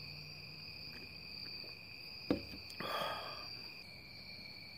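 Crickets trilling steadily at one high pitch. A single sharp knock comes a little over two seconds in, followed by a short rustle.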